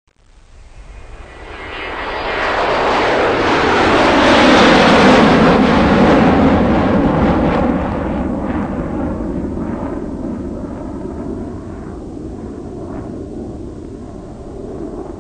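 Loud rushing wind and road noise while keeping pace with the cart on a road, building over the first few seconds, peaking about five seconds in, then slowly fading.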